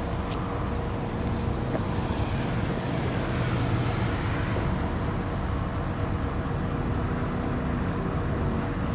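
An engine idling steadily: a continuous low rumble with a faint steady hum over it. A few faint clicks come in the first two seconds.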